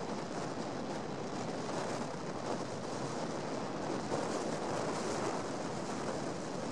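Steady road noise of a moving car: tyres on asphalt mixed with wind rush, even throughout with no changes.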